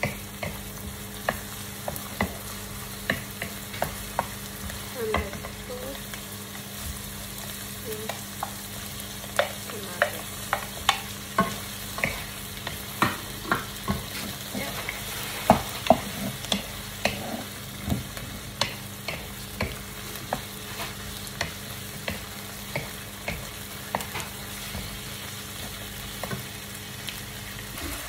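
Bacon, onion and tomato frying and sizzling in a wok, with a wooden spatula scraping and tapping against the pan about once a second as it is stirred.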